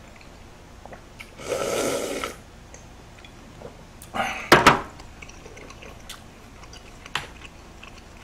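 Slurping seafood ramen broth from a large glass bowl, with a noisy slurp about a second and a half in. About four and a half seconds in comes the loudest sound, a sharp clunk as the glass bowl is set down on the tray.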